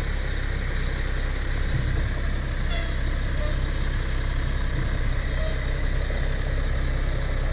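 Tow vehicle's engine running steadily at low revs while slowly reversing the RV, a constant low drone.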